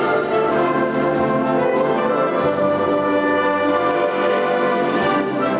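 Concert band of woodwinds and brass playing a Holy Week processional march in long, held chords.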